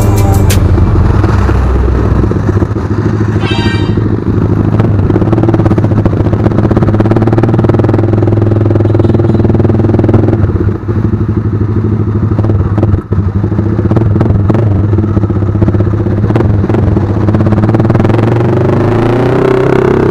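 Z200S motorcycle's exhaust, fitted with an aftermarket SC Project muffler on a 51 mm elbow, running steadily under way. Two brief dips in loudness come past the middle, and the pitch rises near the end as it speeds up.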